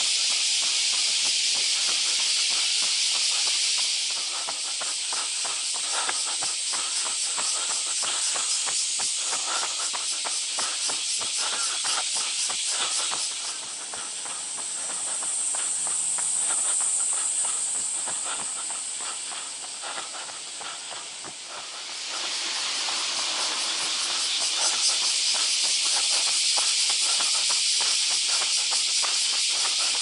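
A loud chorus of cicadas, a dense shrill buzz that shifts in texture. Past the middle it thins to a higher, narrower shrill for several seconds, then swells back to the full chorus. Faint rhythmic footfalls of a runner on pavement sit beneath it.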